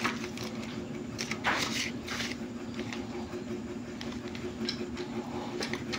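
Plastic parts packets rustling and crinkling as they are handled, with two short rustles about one and a half and two seconds in, over a steady low hum.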